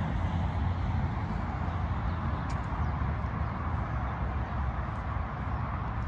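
Steady outdoor background noise with a heavy low rumble, and a single short high chirp about two and a half seconds in.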